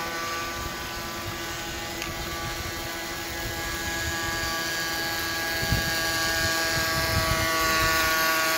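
Small brushed electric motor of an RC boat driving a 3D-printed jet drive: a steady whine, growing a little louder near the end. The jet pump is running but barely moving the boat.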